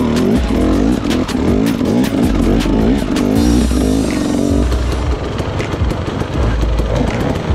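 Dirt bike engine revving up and down, its pitch rising and falling again and again.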